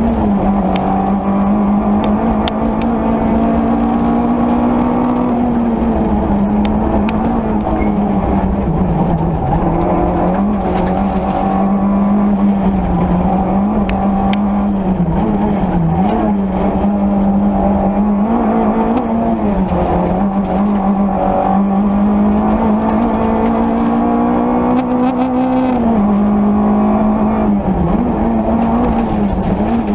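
Peugeot 205 Rallye rally car's four-cylinder engine, heard from inside the cockpit, held at high revs flat out. Its pitch climbs and then drops back again and again through gear changes and lifts for corners.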